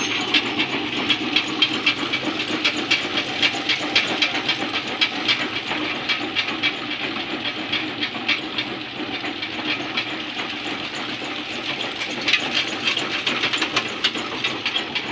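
Stone-crushing plant running: a jaw crusher and its belt conveyors, with a dense rapid rattle of crushed stone over a steady machine hum.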